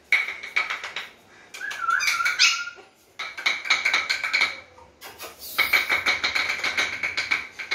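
German Spitz puppies yipping and whimpering in four bouts of rapid, high-pitched pulsed cries, with a wavering whine about two seconds in.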